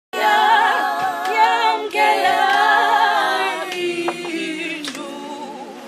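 A cappella group of voices singing in harmony, with no instruments, several sung lines wavering with vibrato. It cuts in suddenly at the start and grows softer from about four seconds in.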